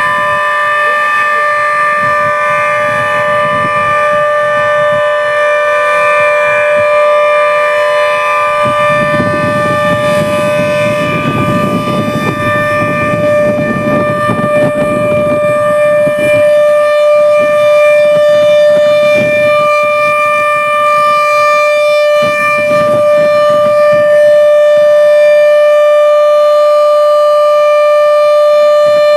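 Civil-defence air-raid siren holding a loud, steady tone, sounded as a drill rather than a real warning.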